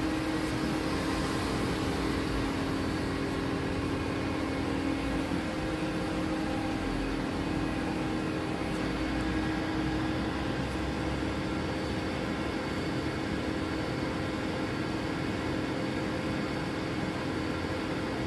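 Steady mechanical hum of a powered-up DMG MORI NLX2000SY CNC turning center, with a few held tones; the strongest tone fades out about five seconds in.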